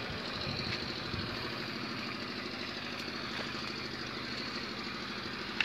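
An engine idling steadily, an even hum that holds the same speed throughout.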